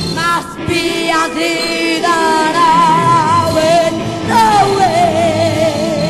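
Early-1970s progressive rock music: several high melodic lines that waver with strong vibrato over a sustained backing, one sliding down in pitch about four seconds in.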